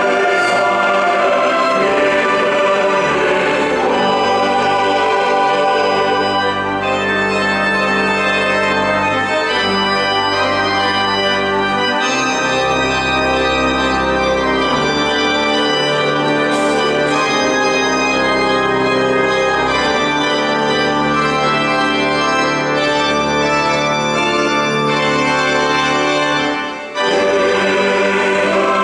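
Organ playing an instrumental interlude of held chords over a moving bass line in a slow choral song. Young women's choir voices are heard in the first few seconds, and after a brief drop near the end the choir comes back in.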